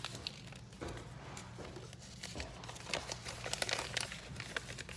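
Packaging crinkling and rustling in the hands as a mystery squishy pack's contents and paper checklist are handled: irregular small crackles, busier in the second half.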